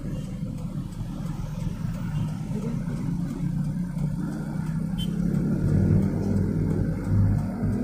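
Light truck's engine heard from inside the cab, running under load as the truck pulls away in traffic, a low rumble that grows louder around six seconds in and eases near the end.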